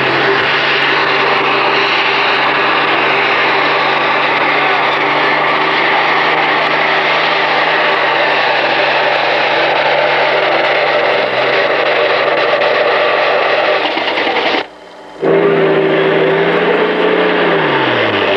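Super stock pulling tractor's diesel engine running hard under load as it pulls a sled. About three-quarters of the way through, the sound drops out briefly, then another pulling tractor's engine comes in, its pitch falling near the end.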